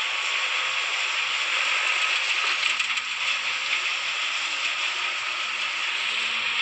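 Excavator running, a steady mechanical clatter and rattle with no let-up.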